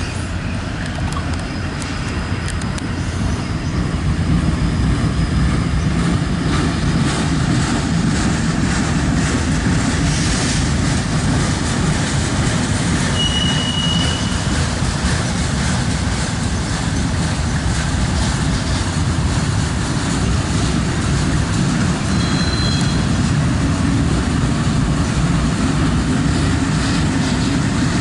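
Loaded autorack freight cars rolling past with a steady rumble of steel wheels on rail. A brief high wheel squeal comes about halfway through, and a shorter one near the end.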